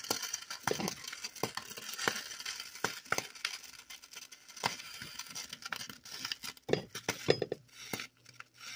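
Pot of collard greens with smoked turkey simmering, with irregular soft pops and ticks. Near the end a spoon stirs and knocks in the pot.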